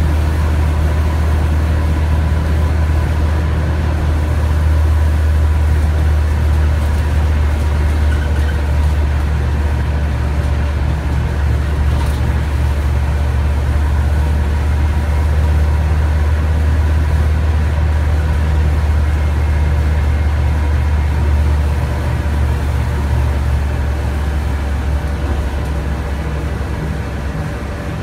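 Mercedes-Benz M 447 hG CNG engine of a Mercedes-Benz O 405 NH city bus, running under way and heard from inside the passenger cabin: a steady low drone that eases off about three-quarters of the way through.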